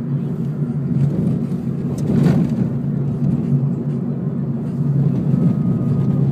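Steady low engine and road rumble heard from inside a moving car's cabin, with a brief louder swell about two seconds in.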